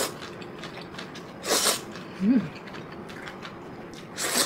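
Eating noises at a table: two short bursts of slurping Jjapaghetti noodles, about a second and a half in and again near the end, with a brief 'mm' hum between them.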